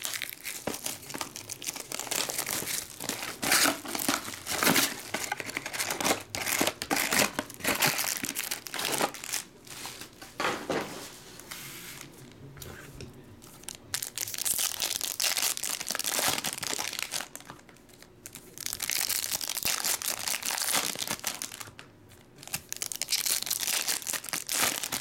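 Foil baseball-card pack wrappers being torn open and crumpled by hand: dense crinkling and tearing of the foil, with a few short lulls.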